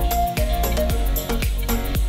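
Background music with a steady beat and a held melody line.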